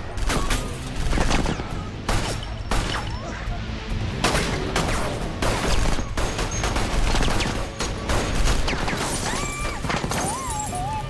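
Film soundtrack gunfire: many sharp shots in quick, irregular bursts over background music. Near the end, wavering high tones come in.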